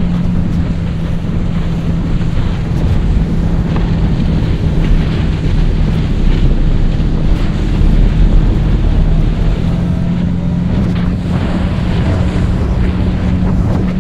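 Boat outboard motor running steadily at speed, a constant engine hum under heavy wind buffeting on the microphone and water rushing past the hull.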